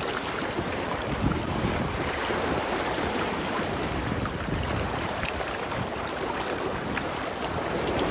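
Sea waves washing in at the shore, a steady rushing noise, with wind buffeting the microphone in gusts.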